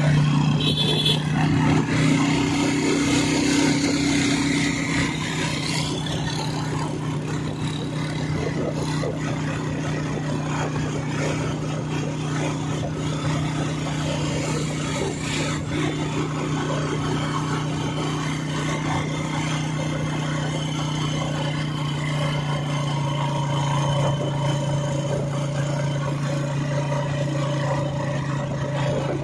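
Honda motorcycle's engine running at a steady cruising speed while being ridden, with wind and road noise rushing past.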